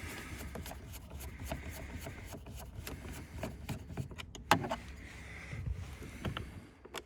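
A Torx T20 screw being undone from a car door trim: faint scraping with scattered clicks over a low hum, one sharper click about four and a half seconds in.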